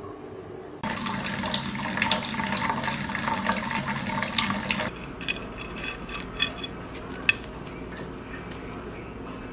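Water running from a kitchen tap into a steel sink while a cat drinks from the stream, a steady rush that lasts about four seconds and cuts off suddenly. After it come a few faint light taps.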